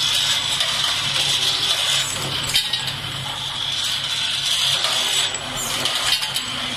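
CNC two-spindle thread tapping machine running as it taps drop-in anchor sleeves: a steady high whir over a low hum, with a few sharp clicks and rattles.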